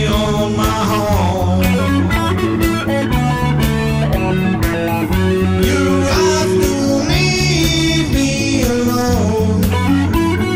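Rock song playing: guitar over a steady bass line and drum beat, an instrumental stretch without lyrics.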